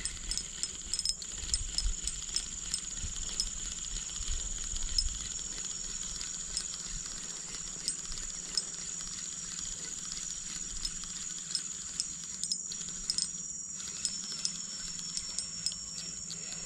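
Steady high-pitched drone of insects in the riverside vegetation, with short ticks at a regular pace. There is a low rumble in the first few seconds.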